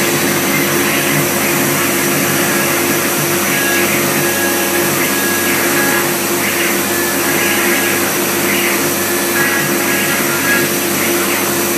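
CNC router spindle engraving wood, with dust extraction drawing through the hose at the dust shoe: a steady machine whine and rushing noise that does not let up.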